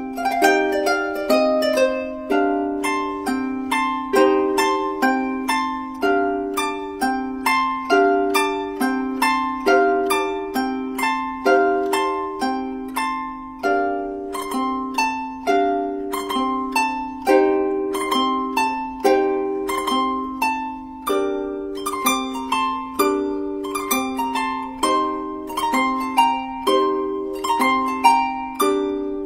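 Recorded solo harp music: plucked notes that ring and fade one after another in a steady rhythm, over a repeating figure in the lower notes.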